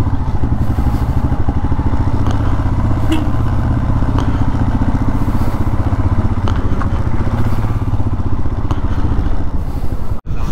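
Motorcycle engine running steadily, with a dense, even pulsing from its firing. The sound cuts out for an instant near the end.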